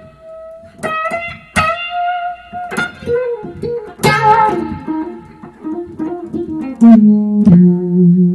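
Electric guitar, a Stratocaster through a Dumble-style overdrive and a Fender DeVille 4x10 amp, playing a bluesy single-note lead with string bends and vibrato. It ends on a held low double note.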